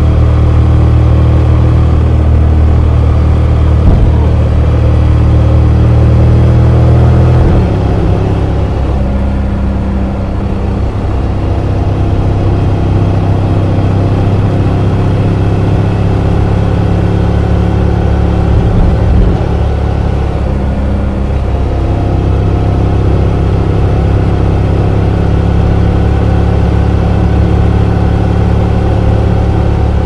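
Motorcycle engine breathing through an Akrapovic header and the stock muffler, recorded onboard while riding: a steady engine drone that drops in level about seven seconds in as the throttle eases, then holds steady at a lower level.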